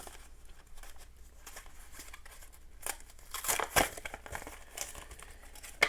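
Foil wrapper of a Yu-Gi-Oh! booster pack crinkling and tearing as it is handled and opened. The rustles are irregular and loudest about three and a half to four seconds in, with a sharp click near the end.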